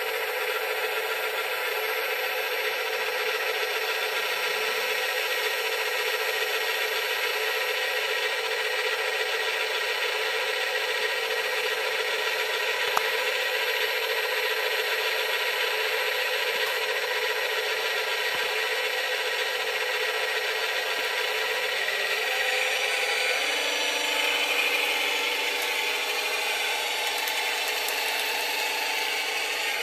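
Steady whine and gear noise of the electric drive motors and gearboxes of radio-controlled scale construction models. A lower steady hum joins about three-quarters of the way through.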